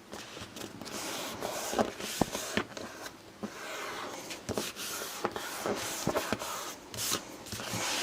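Paper and cardstock being handled and pressed down: rustling and sliding with scattered light taps and clicks.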